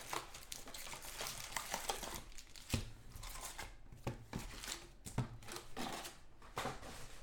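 Foil trading card packs crinkling as they are lifted out of a cardboard hobby box and stacked on a table, with soft taps as they are set down, several of them sharp.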